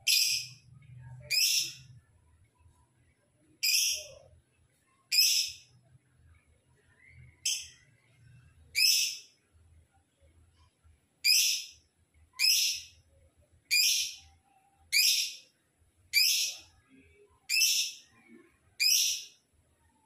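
Caged lovebird giving a series of short, shrill, high-pitched calls, about thirteen of them spaced one to two and a half seconds apart.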